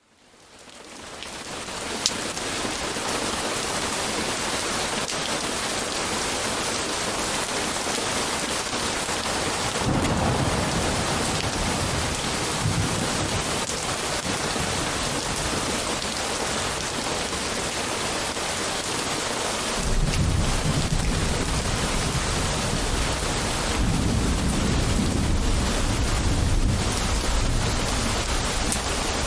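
Steady rain with rolling thunder. The rain fades in over the first two seconds, with a single sharp tick about two seconds in. A low rumble of thunder comes in about ten seconds in, and a longer one from about twenty seconds in.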